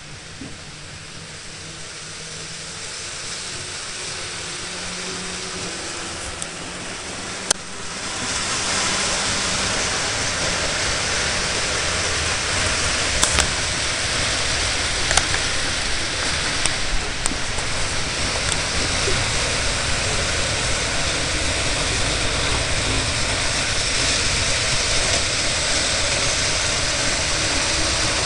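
Model train running on layout track: a steady whirring rumble of motor and wheels that grows louder over the first several seconds, then holds, with a few sharp clicks.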